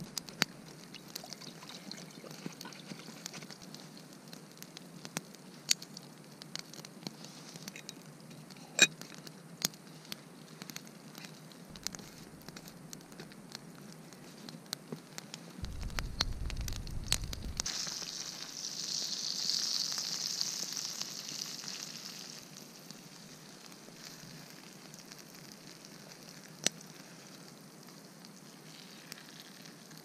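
Wood campfire crackling and popping under a pan of batter fritters frying. A steady hiss swells up past the middle for a few seconds, then fades.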